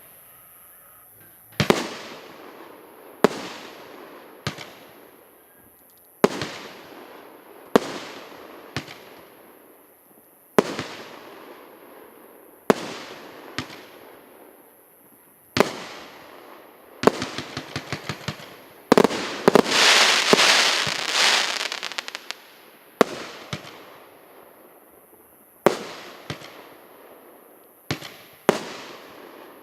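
A 48-shot consumer firework cake firing shot after shot, one every one to two seconds, each sharp bang trailing off as the shell bursts. Past the middle comes a quick run of small pops, then a few seconds of dense crackling.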